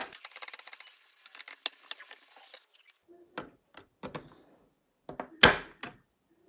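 Hard plastic Lego pieces rattling and clicking as they are handled and pressed together: a quick run of small clicks over the first couple of seconds, then a few separate clicks, the loudest about five and a half seconds in.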